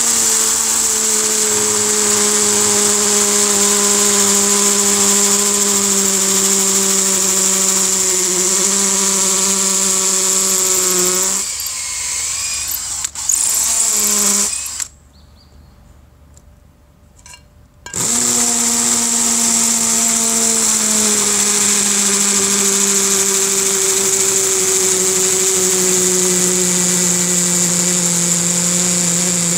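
Cordless hammer drill boring into brick with a 6 mm masonry bit: a steady motor whine that falters about eleven seconds in, stops for about three seconds around halfway, then starts again and runs on.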